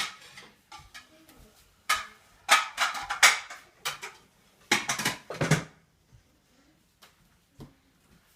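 Dishes and cutlery clattering and clinking as a dishwasher is unloaded, in several bunches of sharp knocks over the first half, then quiet.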